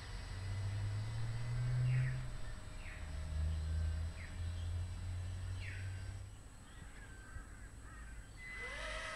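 A bird calling again and again in short, falling calls over a low, uneven rumble. Near the end a rising tone comes in and holds steady.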